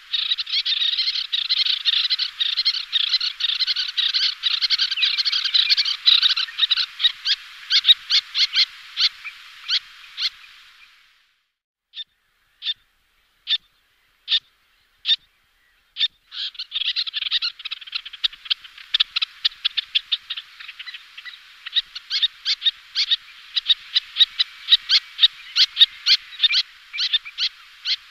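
Little terns calling: fast, dense runs of short, sharp high calls. About halfway through the calling thins to a handful of single calls for a few seconds, then the rapid calling starts again.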